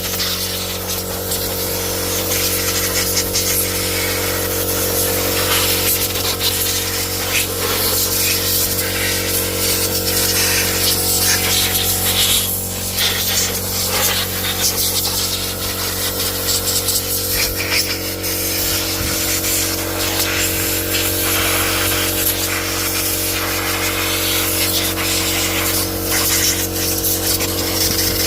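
Spray-cleaning a flood-damaged diesel engine: a steady motor hum under a continuous hissing spray, holding level throughout.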